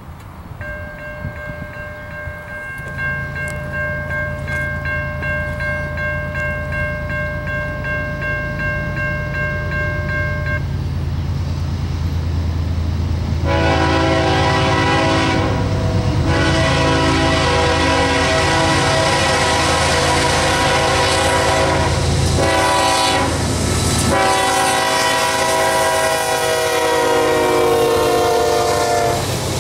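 CSX GE ES40DC locomotive sounding its multi-chime air horn in long blasts. The first blast is steady and lasts about ten seconds; from about halfway in come louder blasts with short breaks, the pitch dropping as it goes by near the end. The low rumble of the diesel engines and rolling freight cars runs underneath.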